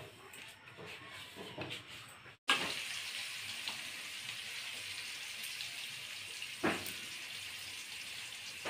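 Faint clicks of a knife cutting bottle gourd leaf stems. After an abrupt break in the sound, a steady hiss takes over, with one sharp click near the end.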